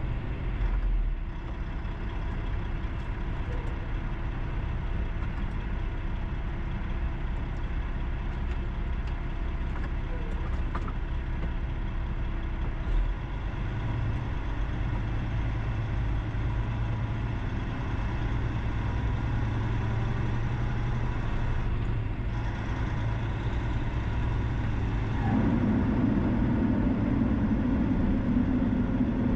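Steady road and engine noise of a vehicle driving on a highway. Near the end a lower drone grows louder.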